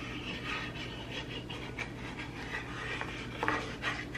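A wooden spoon stirring and scraping red enchilada sauce in a skillet, as a run of soft scrapes while warm water is worked in to thin the sauce. A low steady hum lies underneath.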